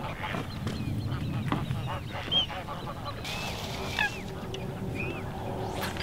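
Waterfowl on the reservoir calling: short honking calls scattered through, one after another, over a low rumble.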